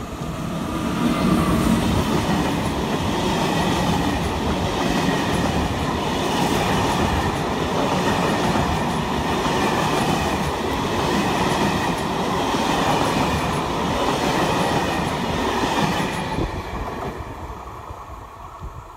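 An SNCF electric locomotive hauling Corail passenger coaches passes close by at speed. It rises quickly to a steady loud rumble and clatter of wheels on the rails, which fades away as the last coaches pull off in the final few seconds.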